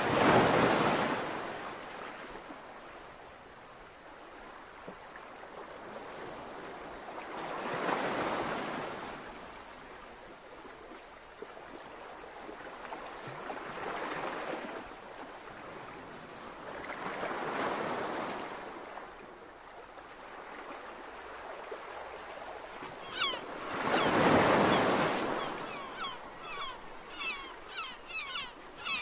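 Sea waves washing in slow surges a few seconds apart. Near the end, a quick series of short, high, falling bird calls joins in.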